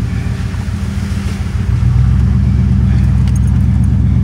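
Pickup truck engine running under way, heard from inside the cab as the truck drives through a flooded dirt road. The engine gets louder less than halfway through and holds there.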